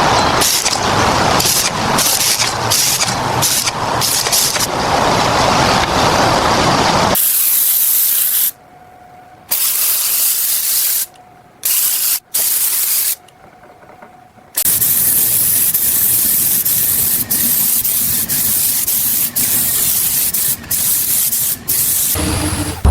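Steady hissing spray, broken up by abrupt cuts. About a third of the way in it drops out for several seconds to much quieter moments with a faint steady tone, then returns.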